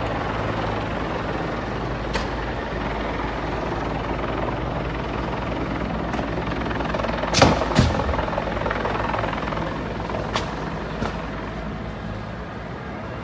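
Steady rumble of a large car-park fire with several sharp pops, the loudest two close together about seven and a half seconds in, fitting cars and tyres bursting in the blaze.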